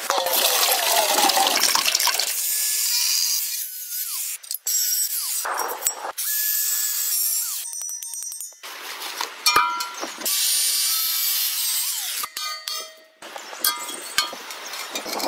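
Water poured from a metal bucket into an old steel gas cylinder, gushing for the first couple of seconds. Later come sharp metallic knocks from a hammer on the cylinder's valve, with the loudest knock a little past the middle.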